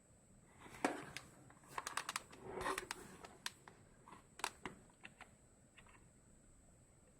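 Keys of a ZK-G082 membrane keyboard pressed irregularly, giving scattered soft clicks with two busier stretches of handling and pressing about a second in and around two and a half seconds in, then a few sparser clicks.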